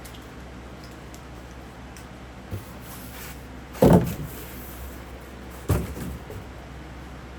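Thumps and knocks from handling a boxed box fan during unpacking: a small knock, then a loud thump about four seconds in and a second thump nearly two seconds later, over a steady low hum.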